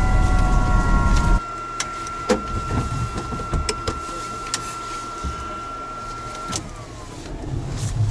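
Helicopter on the ground: loud engine noise with a high whine drops away sharply about a second in, leaving one steady high whine and a series of sharp clicks from the pilot working cockpit switches. About two seconds before the end another click comes and the whine glides down as it winds off.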